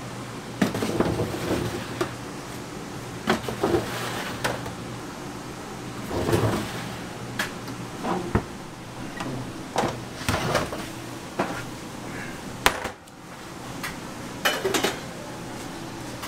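Metal baking trays clanking and scraping as they are slid onto the deck of a commercial deck oven and the oven door is handled: irregular knocks and scrapes, with one sharp knock near the end, over a steady low kitchen hum.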